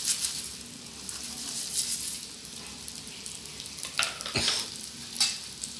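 Coriander seeds rattling as the last of a cupful pours into a lightly oiled pan, then a soft sizzle as they start to heat. A sharp knock about four seconds in.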